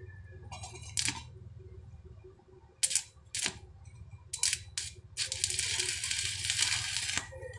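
Stick welding arc on steel angle bar: several short crackling strikes as the electrode is struck, then a steady crackle for about two seconds while the corner is tack-welded, cutting off suddenly near the end.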